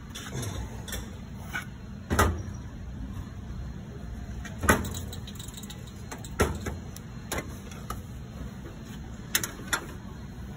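Clunks and clicks of a steel Snap-on tool box being handled, its drawers and lower cabinet door worked: about six sharp knocks, the loudest about two seconds in and near the middle, two close together near the end.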